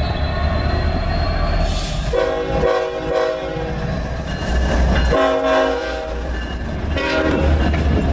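Diesel freight locomotive's multi-chime air horn sounding three blasts, the first longest, over the low rumble of the locomotives and rolling train.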